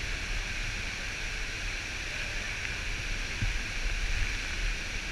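Waterfall and the shallow stream below it rushing through a narrow rock gorge, a steady hiss.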